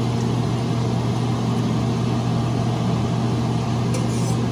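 Steady low mechanical hum, like a fan motor running. A short clink about four seconds in as a wire whisk touches the pan.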